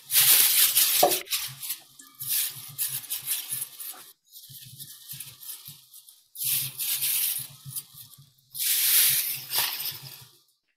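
Cabbage and shimeji mushrooms frying in garlic oil in a frying pan, sizzling in four separate bursts of hiss with short gaps between them.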